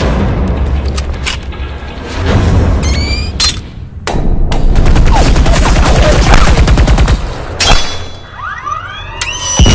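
Film soundtrack of rapid automatic gunfire in bursts, densest in the middle, with a rising electronic sci-fi whine near the end.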